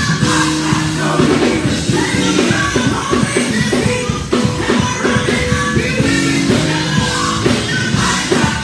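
Live gospel song: a group of women singing together into microphones over loud band accompaniment with drums.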